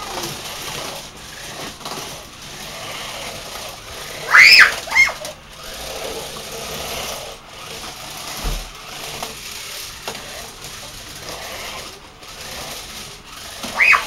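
Small electric motors of a toy remote-control stunt car whirring as it drives across the floor. A child lets out loud, high-pitched squeals about four seconds in and again near the end.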